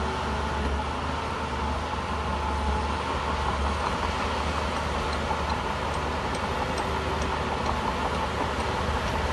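Shantui bulldozer's diesel engine running steadily as the machine works, a continuous heavy-machinery rumble.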